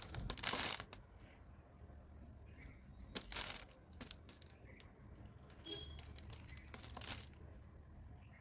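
Blade cutting through dry soap cubes: three louder crisp crunches about three to four seconds apart, with small crackles and clicks between.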